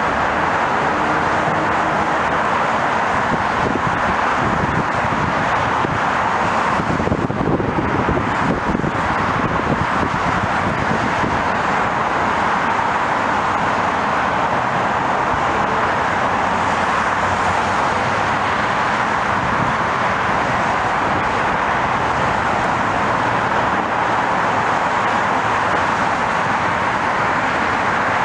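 Steady jet engine and traffic noise as a regional jet with under-wing engines slows on the runway and taxis past, its engines near idle.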